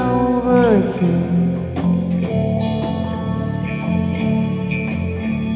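Rock band playing an instrumental passage on electric guitar, bass guitar and drum kit, with regular drum and cymbal hits. A held sung note slides down and drops away in the first second.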